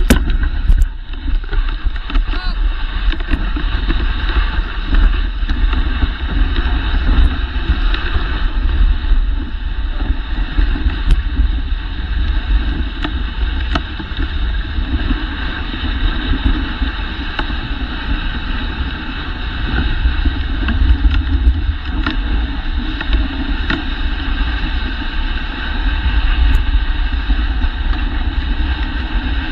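Dogsled runners sliding steadily over a packed snow trail, a continuous rushing hiss, with wind rumbling on the microphone and a few faint ticks and knocks from the sled.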